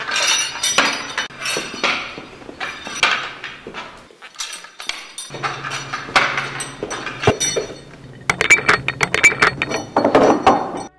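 Irregular clinks and knocks from footsteps and a cane on a brick floor. Near the end comes a quick run of metallic rattling as a door's lock and handle are worked.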